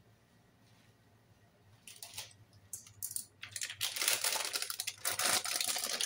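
Crinkling and rustling of a plastic packet being handled, starting about two seconds in and growing louder and denser.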